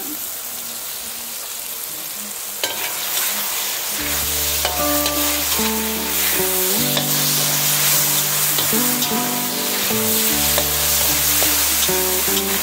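Black mushrooms, garlic and chilies sizzling in oil in a wok, with a metal spatula scraping and clicking against the pan. Background music with changing notes and a low bass comes in about four seconds in.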